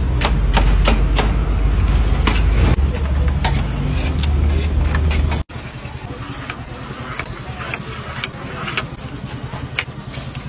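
A metal scraper chopping through a spiral of fried dough on a steel tray, sharp taps about three a second over a loud low rumble. About halfway in it cuts to quieter, irregular knocks over a steady low hum.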